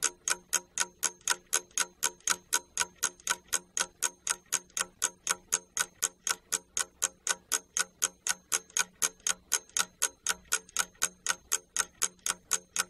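Clock-ticking sound effect: rapid, even ticks at roughly three and a half a second, marking the countdown time given to think over a task.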